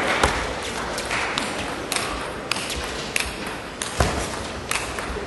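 Table tennis rally: a quick series of sharp clicks as the ball is struck by the bats and bounces on the table, roughly two a second, with the loudest hit about four seconds in. A steady murmur of a large crowd lies underneath.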